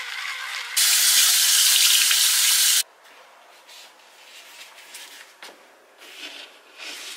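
Bathroom faucet running and splashing while a face is rinsed at the sink: a loud, steady hiss for about two seconds that cuts off abruptly. Then a few soft flip-flop footsteps on a wooden floor.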